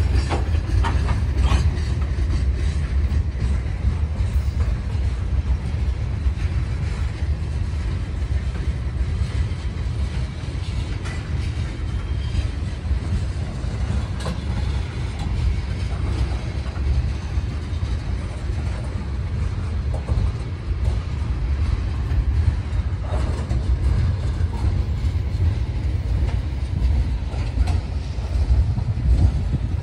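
Slow freight train passing close by, its gondolas and tank cars rolling over the rails with a steady low rumble and scattered clicks from the wheels.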